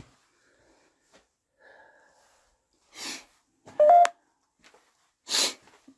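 Two short nasal sniffs, about three seconds in and again near the end, from a man with a runny nose. Between them, the loudest sound is a brief electronic beep from a phone app that steps up in pitch.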